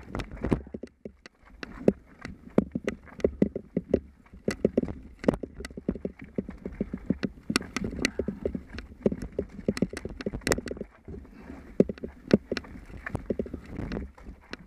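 Mountain bike clattering down a rocky trail: a rapid, irregular run of sharp knocks and rattles as the tyres and bike hit the rocks, over a steady low rumble.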